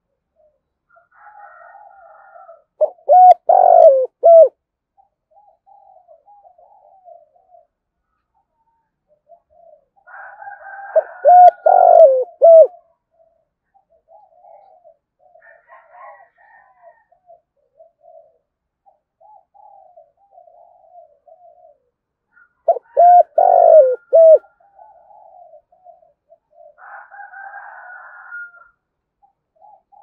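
Spotted dove cooing: three loud calls of several quick, deep notes each, about eight to twelve seconds apart, with soft, quieter cooing in between.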